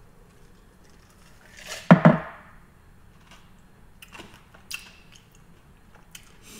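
A man's short voiced 'ahh' exhale after a drink of water, about two seconds in. A few light clinks follow around four to five seconds in as the glass mason jar is set down.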